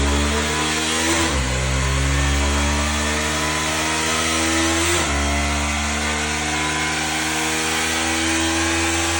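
Honda Tornado XR 300 motorcycle engine accelerating hard through the gears. Its note climbs steadily, then drops sharply at an upshift just over a second in and again about five seconds in. The bike is fitted with an aftermarket ECU and a changed sprocket.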